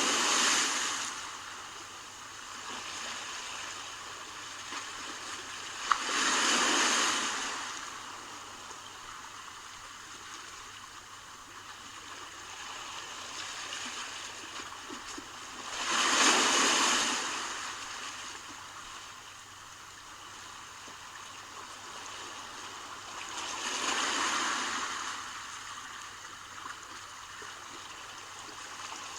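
Sea waves breaking on the shore: a rush of surf swells up and fades away every seven to ten seconds, with a steady hiss of water in between.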